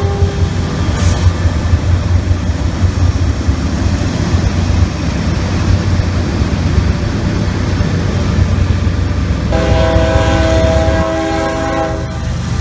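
Norfolk Southern freight train passing close by: the diesel locomotives' engines rumble and the hopper cars roll over the rails. Near the end a multi-chime train horn blows for about a second and a half.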